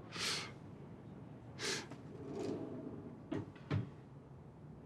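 A man's sharp, heavy breaths, two of them about a second and a half apart and a fainter one after, from distress after bad news. Two soft knocks come close together in the second half.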